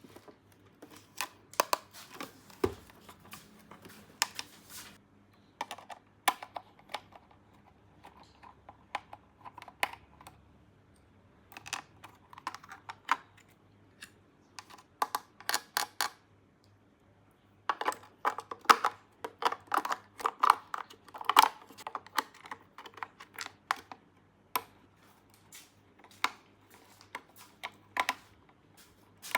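Small plastic toy pieces of a miniature playset clicking, tapping and clacking as they are handled and set down, in irregular clusters with a busier run of clicks past the middle.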